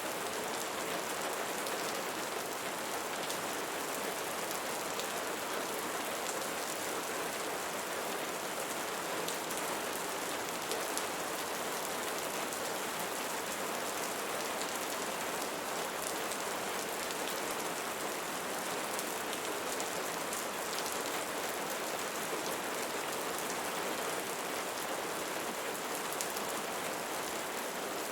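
Steady rainfall: a dense patter of drops on a surface over an even hiss, unchanging throughout.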